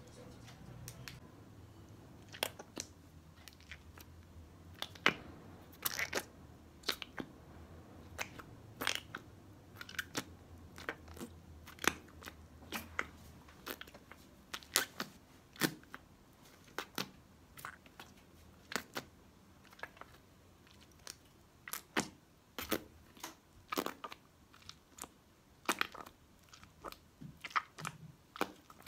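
Poopsie slime being kneaded and pressed by fingers into a small plastic container, giving irregular sticky clicks and pops, a few a second at times.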